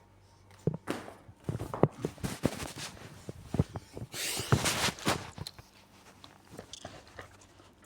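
A package being handled and opened by hand: a scatter of clicks and knocks, with a burst of crinkling about four seconds in.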